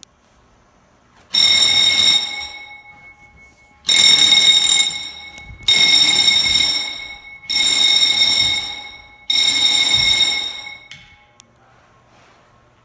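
Commercial fire alarm horns sounding five loud blasts about two seconds apart, each tailing off, as a detector is tripped during alarm testing.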